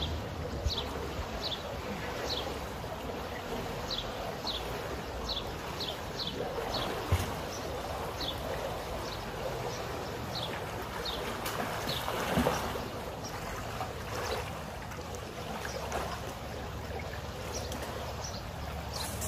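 Pool water sloshing and lapping as a person swims through it, with a steady watery hiss and a swell of splashing about twelve seconds in. Short, high chirps falling in pitch repeat irregularly over the first dozen seconds.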